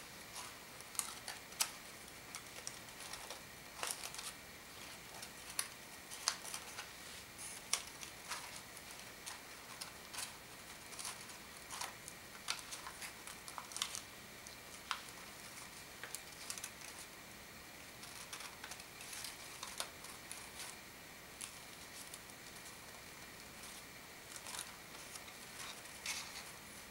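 Sheets of origami paper rustling and crinkling as folded modular units are handled and slotted into a kusudama, with irregular small clicks and crackles throughout.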